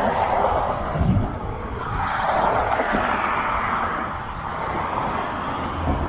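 Road traffic passing: a rushing of tyres and engines that swells near the start and again about two seconds in, with a couple of low thumps.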